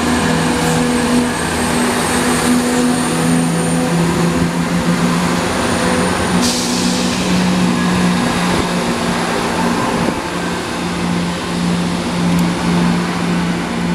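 ScotRail Class 170 Turbostar diesel multiple unit moving past the platform, its underfloor diesel engines giving a steady low hum with a second hum above it. A short hiss comes about six and a half seconds in.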